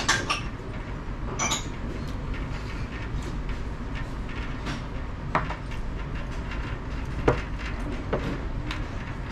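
Chopsticks and a porcelain rice bowl clicking now and then as someone eats: a few short sharp taps spread through, over a steady low rumble of restaurant room noise.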